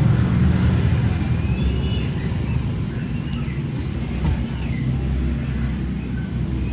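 Steady low rumble of road traffic, with a single sharp click a little after halfway.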